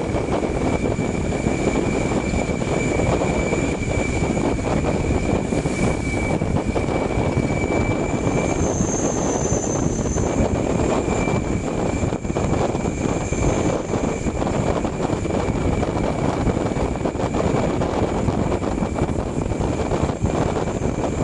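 Steady rush of engine, road and wind noise from a moving bus, picked up by a microphone on its roof, with a thin high whine on top that drops out for a moment about halfway through.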